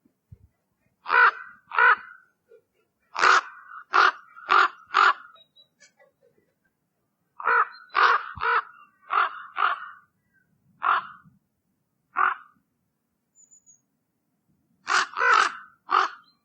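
Common raven calling: short calls repeated in bunches of two to five, with single calls between, about sixteen in all.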